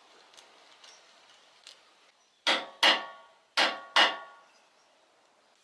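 Hammer striking a steel V-belt pulley on a hydraulic pump's shaft: four sharp, ringing metallic blows in two quick pairs, starting about halfway through.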